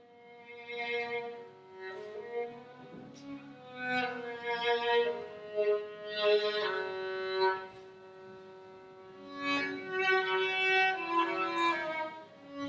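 Background music: a violin playing a slow melody of long, held notes.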